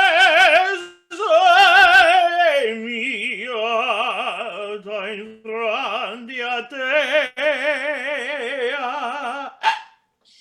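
A single voice singing wordless, mock-operatic phrases with a heavy vibrato: two loud high held notes, then a string of lower held notes, breaking off about nine and a half seconds in.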